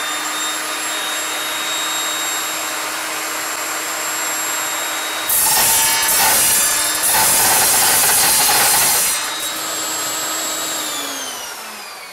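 Evolution Rage 5-S table saw running at speed, its carbide-tipped blade cutting through 1/8-inch-thick steel strap for about four seconds with a loud, harsh cutting noise that the saw goes through easily. The blade then spins free, and its whine falls as the saw winds down near the end.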